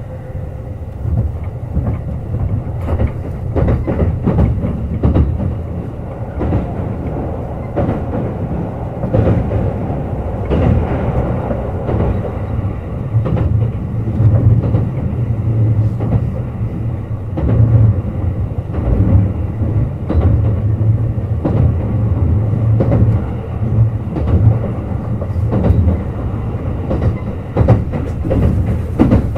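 Running sound of a Kintetsu Urban Liner Plus (21000 series) electric limited-express train: a steady low rumble with repeated clickety-clack of wheels over rail joints, getting louder over the first few seconds and then holding.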